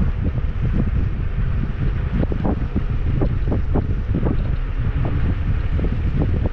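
Wind buffeting the microphone during an electric scooter ride: a loud, steady low rumble with uneven gusts.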